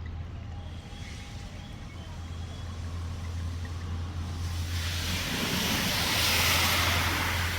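A motor vehicle passing through a waterlogged road, its tyres hissing through the water. The sound builds to a peak about six seconds in and then fades, over a steady low engine hum.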